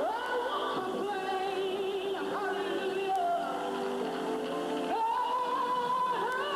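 A woman singing a gospel solo into a microphone, holding long wavering notes and sliding up into them, over steady sustained accompaniment.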